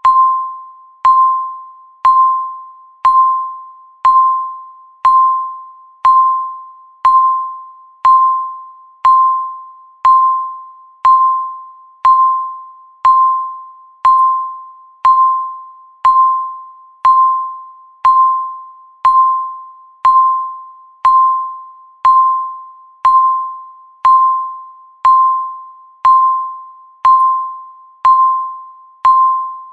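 Countdown timer beeping once a second: a single pure, bell-like tone that starts sharply and fades away before the next, repeating evenly.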